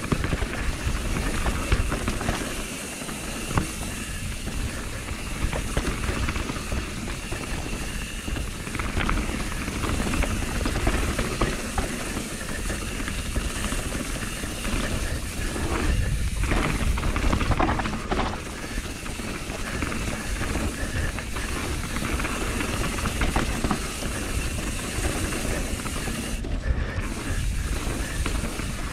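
Enduro mountain bike descending a dirt forest trail at speed: wind rumbling on the action camera's microphone over a constant rush of tyres on dirt and leaves, with frequent rattles and knocks from the bike over roots and bumps.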